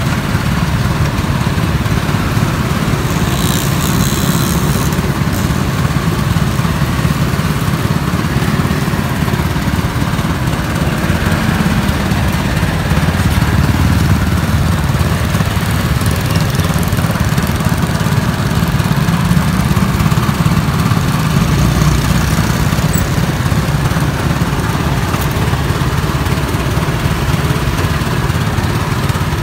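Motor-driven sugar cane juice press running steadily as cane stalks are fed through its rollers to be crushed.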